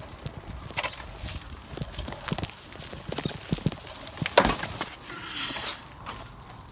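Irregular footsteps clicking and scuffing on concrete, with a louder thump about four and a half seconds in.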